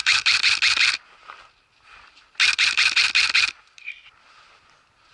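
Airsoft M4 replica firing two full-auto bursts of about a second each, roughly two and a half seconds apart, each a fast rattle of evenly spaced shots.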